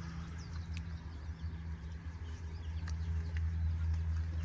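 A steady low hum, with faint scattered clicks and a few faint high chirps over it.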